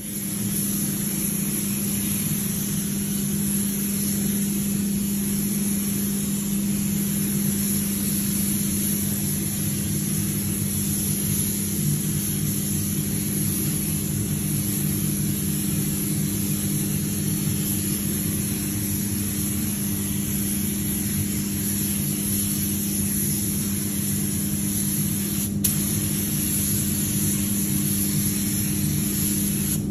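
Steady hiss of compressed air and a low hum inside a paint spray booth while a gravity-feed spray gun sprays paint onto a car's door jamb, with the booth's ventilation running. One small tick near the end.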